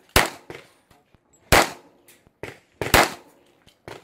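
Pistol shots in an IPSC handgun stage: three loud cracks about a second and a half apart, with fainter pops between them.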